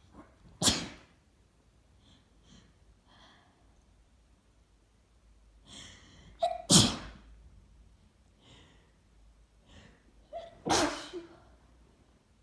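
Three wet sneezes, each coming suddenly; the second and third follow a quick intake of breath, and faint breaths and sniffs fall between them. They are allergy sneezes of a hay-fever fit set off by tree pollen.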